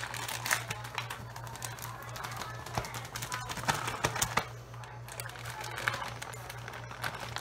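Background music, with plastic bags crinkling and rustling in quick clicks as they are handled and shaken while dredging meat in flour.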